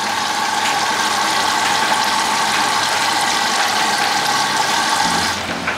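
Water rushing steadily through an Indesit washing machine's detergent drawer as the machine fills, while ACE Gentile liquid is poured into the drawer; the rush dies away near the end.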